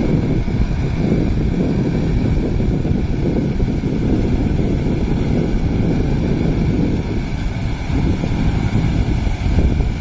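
Kubota MU5502 tractor's diesel engine running under load as it works through a flooded paddy field, under heavy, uneven wind buffeting on the microphone that makes up most of the low rumble.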